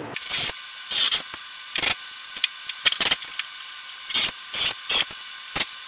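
Cordless drill/driver driving wood screws in a string of short, sharp bursts, about ten of them spaced irregularly.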